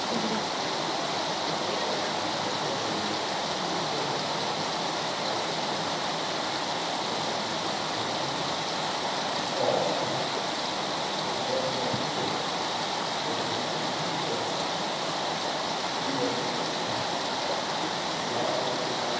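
Steady rush of flowing water, with a brief louder sound about ten seconds in.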